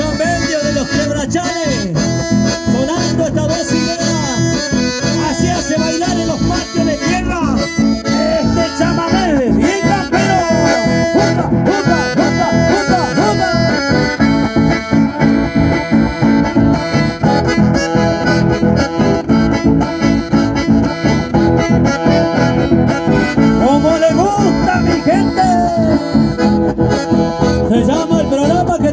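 Chamamé played on button accordions over acoustic guitar: a lively accordion melody above a steady strummed rhythm.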